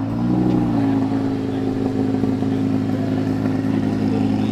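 A car engine idling steadily after a short blip of revs right at the start.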